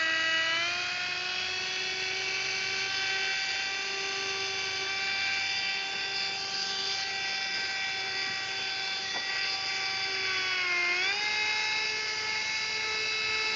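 Central Pneumatic 1/8-inch air micro die grinder running at speed on compressed air: a steady high-pitched whine. The pitch dips briefly near the end and then settles again.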